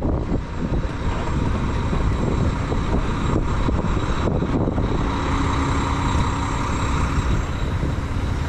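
Truck engine idling steadily while the trailer's air suspension airs up; a steady hum joins in about five seconds in.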